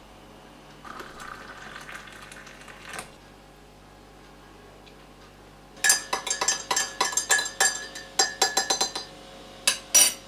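A brief pour of liquid into a ceramic mug, then a metal teaspoon stirring tea, clinking rapidly against the sides of the mug. Two sharper taps of the spoon on the mug come near the end.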